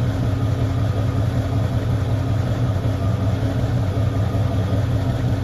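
1969 Chevrolet Chevelle SS 396's big-block V8 idling steadily, with a low, even pulse.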